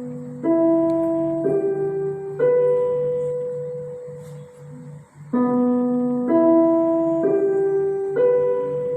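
Piano playing a slow phrase of single held notes, each struck and left to fade, the same phrase played twice.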